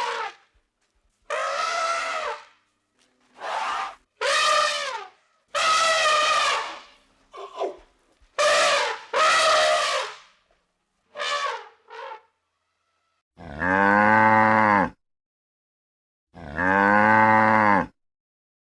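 A string of short, high-pitched animal calls, each falling in pitch, then two long, low cow moos of about a second and a half each.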